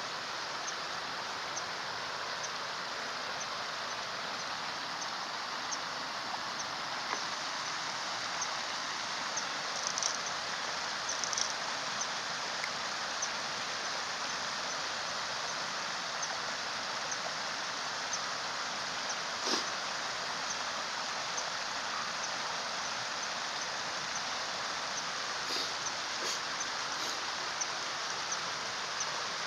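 Steady rush of flowing stream water, with faint high ticks about once a second and a few brief, sharper sounds scattered through.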